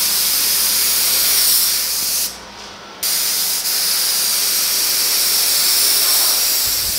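Gravity-feed spray gun with a 1.7 mm tip hissing as compressed air atomizes polyester primer; the spray stops for under a second about two seconds in when the trigger is let off, then starts again. This tip took a lot of air to atomize and threw heavy overspray.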